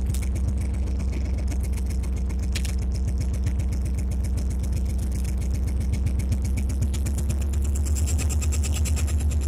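EMD SD24 locomotive's turbocharged 16-cylinder 567 diesel engine running, heard from inside the cab: a steady low throb with rapid pulsing, growing louder about eight seconds in.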